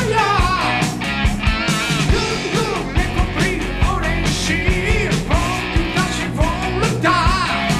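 A 1980s Romanian rock song playing back: a singer over guitars and a steady drum beat.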